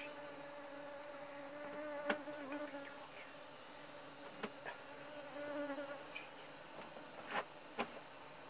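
A flying insect buzzing close by, one steady note with a slightly wavering pitch, until it stops about six seconds in. A few short sharp cracks sound through it, the loudest about two seconds in and near the end.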